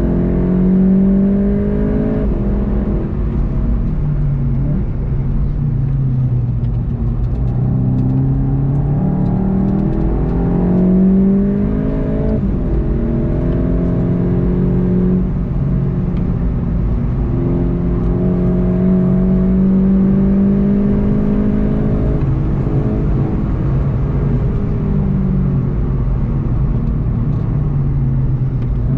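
VW Golf 7.5 GTI TCR's turbocharged 2.0-litre four-cylinder engine heard from inside the car at full throttle on track, its pitch climbing through each gear and dropping back at the upshifts, then falling away on lifts and braking for corners, over steady tyre and road rumble.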